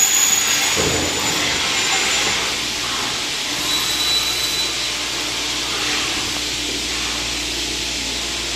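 Kaban SB 3011 PVC profile machining center running: a steady hissing whir, with a short high tone about four seconds in.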